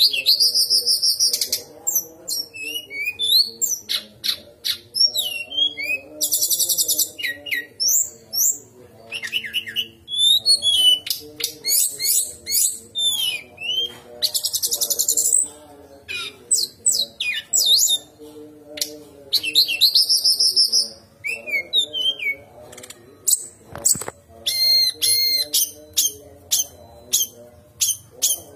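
Brown-chested jungle flycatcher singing: a fast, high-pitched song of sharp trills, slurred whistles and quick chips, delivered in bursts with short pauses between phrases.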